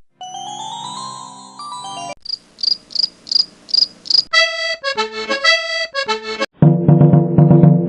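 A quick montage of different short sound clips cut end to end: first a held reedy chord with a rising note, then a run of high, cricket-like chirps about three a second, then alternating pitched electronic-sounding tones, and near the end a dense, low, pulsing sound.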